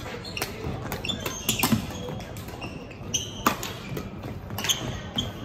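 Badminton play on an indoor court: sharp racket strikes on the shuttlecock at irregular intervals, mixed with short squeaks of court shoes on the floor.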